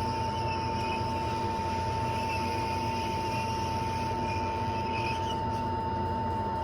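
Hot air rework station blowing steadily while heating a burnt laptop charge port to desolder it, a constant rush of air with a steady whine.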